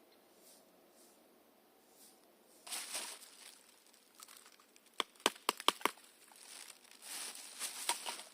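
Rustling and crunching of footsteps through forest-floor litter, with a quick run of about six sharp clicks about five seconds in.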